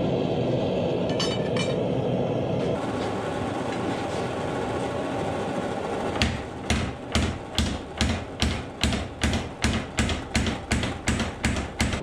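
Steady burner noise from a gas forge, with a couple of light metal clicks early in the first half. About six seconds in, a power hammer starts striking a red-hot 52100 steel bar in an even rhythm of about two blows a second.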